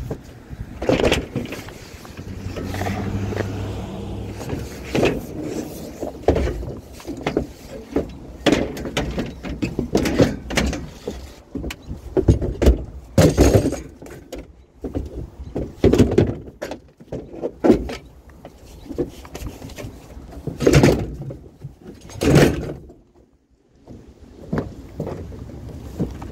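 Irregular knocks, clanks and a few louder bangs as curbside patio furniture is handled and loaded for scrap.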